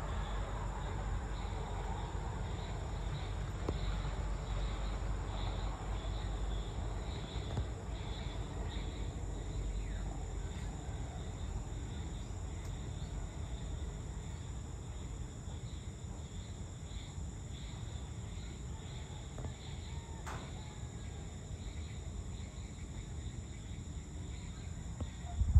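Steady outdoor insect chorus, a continuous high-pitched trilling, over a constant low background rumble. One faint click about twenty seconds in.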